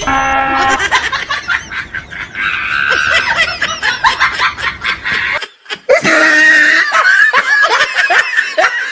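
A train horn blast that cuts off less than a second in, followed by loud, high-pitched laughter with a short break about halfway through.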